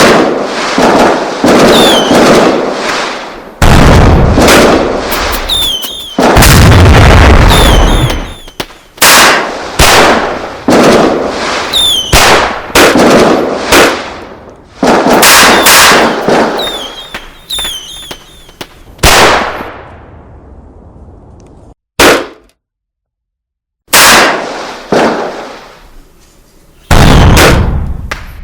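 A rapid string of sudden loud bangs and explosion-like blasts, one every second or two. Several have a deep rumbling tail and some carry high squealing whistles. About three quarters of the way through the sound cuts out completely for about two seconds, then the bangs resume.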